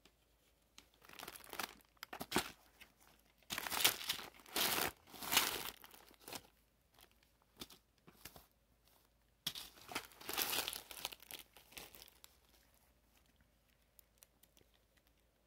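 Plastic and cellophane candy wrappers crinkling as the wrapped sweets are handled, in three bouts of rustling: about a second in, from about three and a half to six seconds, and around ten seconds.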